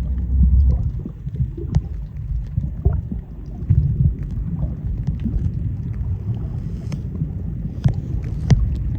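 Underwater sea ambience picked up by a camera mic during snorkelling: a muffled, steady low rumble of moving water with scattered sharp clicks and ticks.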